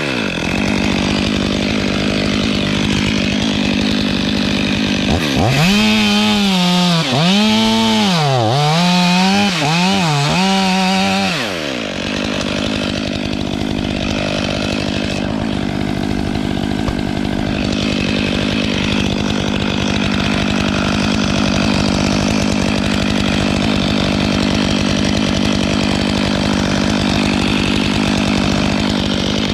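Stihl MS 500i two-stroke chainsaw running hard, its engine speed swinging up and down several times from about five seconds in. From about twelve seconds in it holds a steady pitch as it cuts through a cedar spar.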